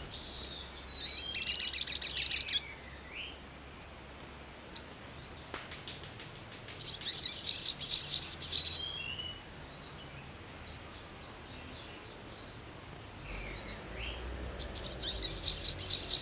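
Male olive-backed sunbird singing: three loud, high-pitched rapid trills of about ten notes a second, each lasting one and a half to two seconds and a few seconds apart, with short scattered chirps between them.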